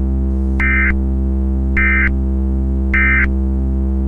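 Three short digital data bursts of an Emergency Alert System SAME end-of-message signal, about a second apart, marking the end of the alert. Under them runs a steady low electronic drone.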